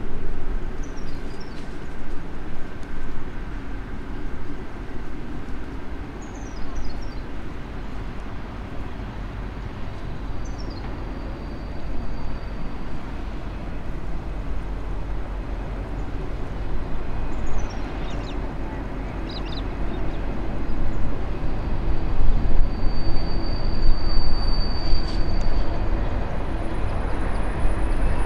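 V/Line N class diesel-electric locomotive hauling a passenger train slowly into the station, its low engine rumble growing louder over the last several seconds as it draws near. Birds chirp in short descending runs several times over it.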